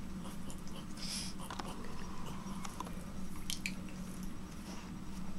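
Faint, scattered mouthing and rustling sounds of a miniature pinscher and a pit bull playing on a bedspread: short wet clicks and a soft hiss about a second in, over a low steady hum.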